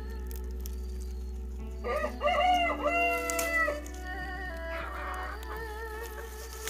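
A rooster crows once, starting about two seconds in and lasting nearly two seconds, the loudest sound here, over soft background music.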